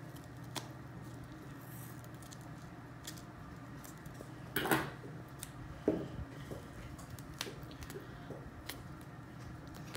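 Scissors snipping and trimming cloth medical tape wrapped around a foam backer-rod post, with soft clicks and tape rustle from handling; the sharpest snip comes about halfway through.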